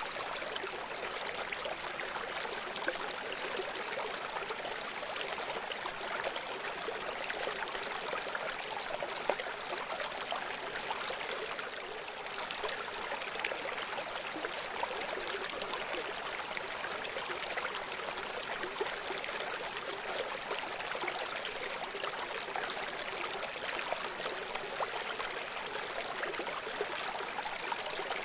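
Running stream: water flowing and trickling over rocks, a steady babbling with small splashes throughout.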